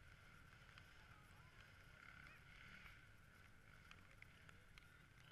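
Near silence: faint outdoor background with a few faint ticks.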